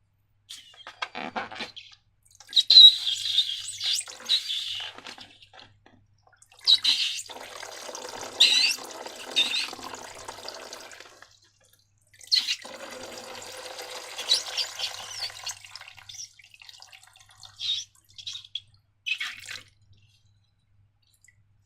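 Sticky slime being squished and worked by hand, in three bouts of wet squelching and crackling. A few short squelches follow near the end.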